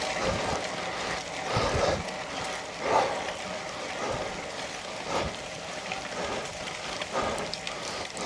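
Bicycle riding over wet gravel in heavy rain: a steady rush of tyre noise and water spray, with louder swells every second or two.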